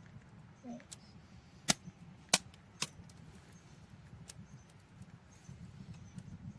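Campfire crackling: a few sharp pops over a low, steady rumble.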